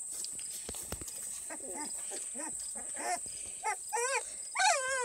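Twenty-day-old beagle puppies whimpering in a string of short, high squeaky calls, starting about a second and a half in and growing louder, the last few wavering up and down.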